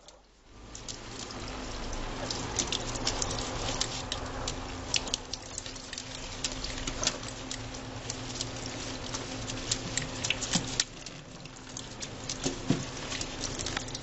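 Tap water running into a stainless steel sink over a bathing parrot, with frequent sharp splashes and patters as the bird flaps its wet wings in the stream.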